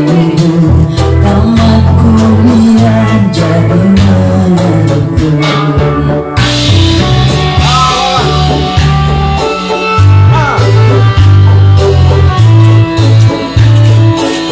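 Pop music with drums, bass and guitar, and some singing.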